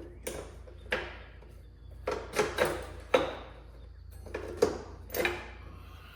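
A series of about eight irregular sharp knocks and clanks, each ringing briefly, as hand tools work on the bolts of a motorcycle during disassembly.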